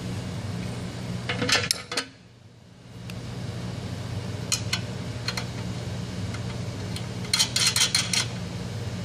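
Metal hardware clinking in short bursts, three times, as nuts, bolts and the bracket of a lathe's caster wheel set are handled and fitted onto the machine's base. A steady low hum runs underneath.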